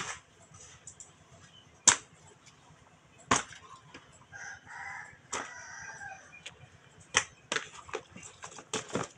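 A rooster crows once, about halfway through, under a series of sharp knocks and taps from handling nearby.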